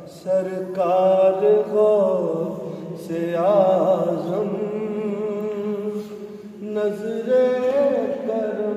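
A man chanting an Urdu devotional poem (kalaam) in praise of Ghaus-e-Azam, his voice holding long, wavering melodic phrases with a short pause about two-thirds of the way through. A steady low hum runs beneath the voice.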